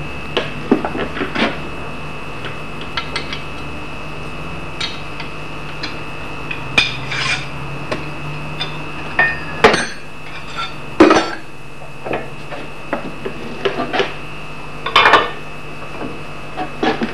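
Irregular metallic clinks and knocks of steel parts being handled on an axe grinding jig, as the file is swapped for the diamond stone and the holder bar is set over the clamped axe blade.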